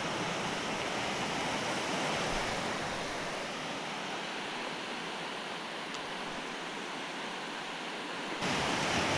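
Waves washing on a shallow beach: a steady hiss of surf that gets louder suddenly near the end.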